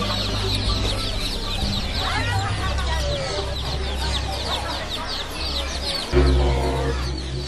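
Many small caged birds chirping together in a dense run of quick, high, overlapping chirps, over a steady low background hum that gets suddenly louder about six seconds in.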